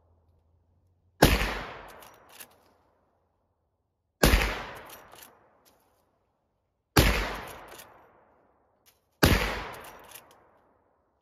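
Henry Big Boy .44 Magnum lever-action rifle firing four shots, about two to three seconds apart. Each shot is followed by the clack of the lever being worked to eject the case and chamber the next round. All four rounds go off, with no misfire.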